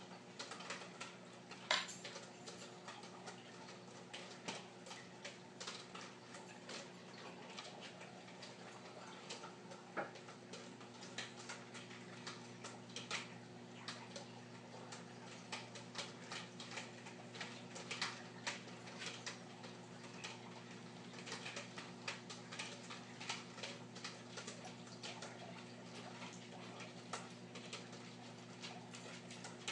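Reef aquarium running: a steady low hum from its pumps under many irregular faint ticks and small pops of circulating water and bubbles.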